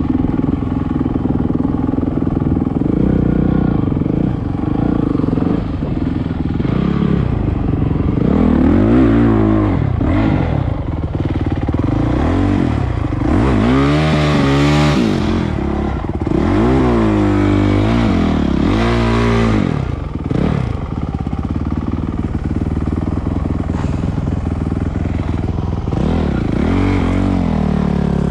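Honda 450 single-cylinder four-stroke dirt bike engine running under the rider, revved up and dropping back again and again through the middle as it picks over rough, muddy ground.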